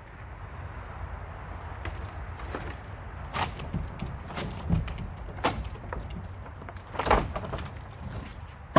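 A few sharp, irregular knocks and bangs, the loudest four coming about a second apart from a third of the way in, over a steady low hum.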